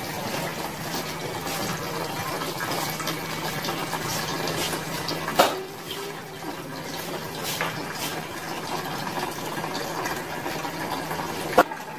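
Bathing water running and splashing in a small concrete bathroom, a steady watery hiss, with a faint low hum that stops about halfway through. Two sharp knocks stand out, one about halfway through and one near the end.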